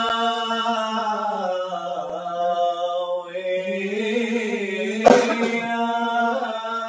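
A man's solo unaccompanied liturgical chant, one voice holding long notes that slowly bend in pitch. A brief sharp noise cuts in about five seconds in.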